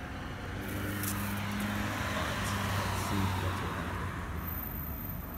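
A car going by on the road, its engine and tyre noise swelling to a peak partway through and then fading.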